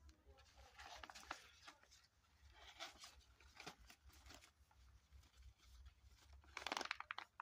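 Laminated seed pouches faintly rustling and crinkling as they are handled and stacked together. There are several short bursts, and the loudest comes near the end.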